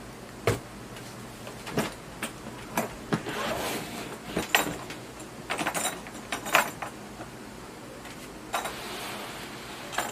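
Hard plastic tool carrying case being handled on a table: several sharp clicks and knocks as it is set down and its latches are snapped open, then a rustle near the end as the lid is lifted.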